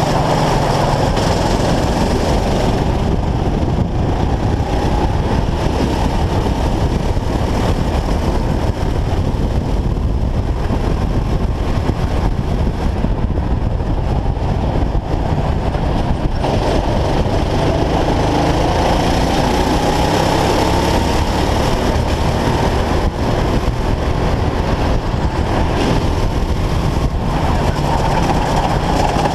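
Go-kart engine at racing speed, heard on board, its note rising and falling slowly as the kart goes through the corners, under a loud steady rumble.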